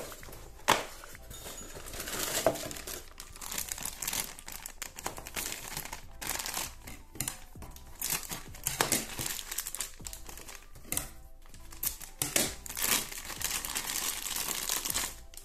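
A thin plastic toy wrapper crinkling in the hands, again and again, while it is handled, cut open with scissors and pulled off the toy.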